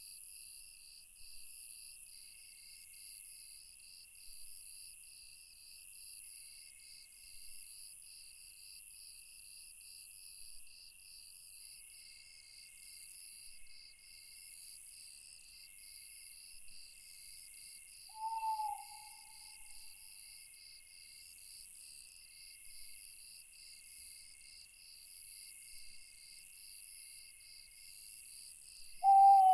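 Crickets and other night insects trilling steadily in a high, rapidly pulsing chorus. An owl hoots twice, a single slightly falling note each time: once about two-thirds of the way through and louder right at the end.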